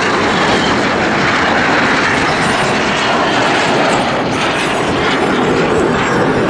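Several BAE Hawk T1 jets flying past in formation, a steady, loud rush of jet engine noise.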